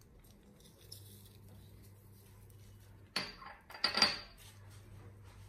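A small glass bowl clinking and scraping on a granite countertop as it is set down, in two short bursts about three and four seconds in, over a faint steady low hum.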